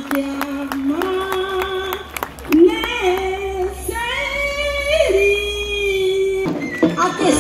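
A voice singing long, held notes that climb step by step and slide up and down between them. A run of sharp clicks sounds under the first two seconds.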